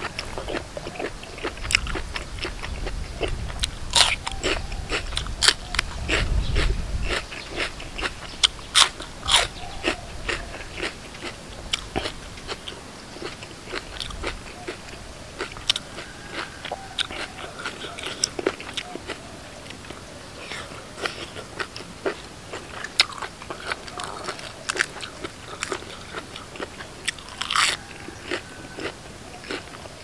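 A person biting and chewing crunchy som tam salad close to the microphone: many sharp crunches, thickest in the first ten seconds and sparser after.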